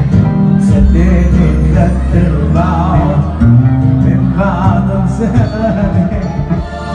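An Arabic song: a male singer draws out wavering, ornamented notes over full instrumental backing with plucked strings.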